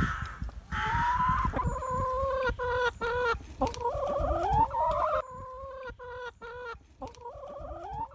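Brown hens clucking and calling close up. Drawn-out calls mix with quick runs of short clucks.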